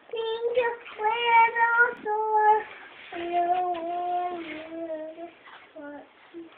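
A young girl singing a slow tune in long held notes. The pitch steps lower about halfway through, then ends on a few shorter, lower notes.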